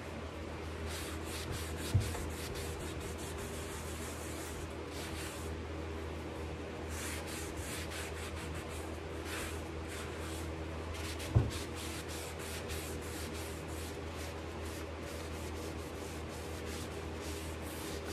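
Paper shop towel rubbing in irregular strokes over painted wood, working black furniture wax into the finish, over a steady low hum. Two dull thumps, about two seconds in and again past the middle.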